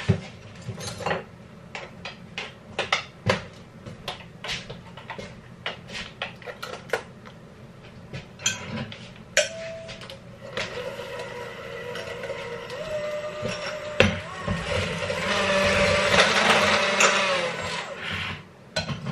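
A run of clicks and knocks, then an electric hand mixer (KitchenAid) starts about halfway through with a steady motor whine. Its wire beaters whir through eggs and sugar in a glass bowl, growing louder before it stops near the end.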